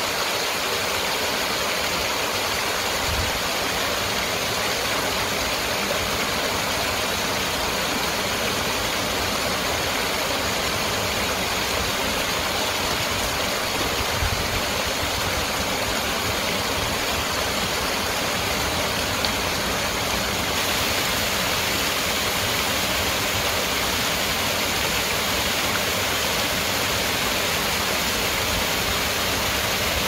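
Small waterfall pouring over rocks into a stream: a steady rush of falling water that turns a little hissier about two-thirds of the way in.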